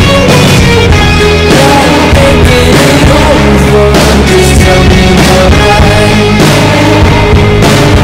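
Loud background rock music: a full band with guitar and a steady drum beat.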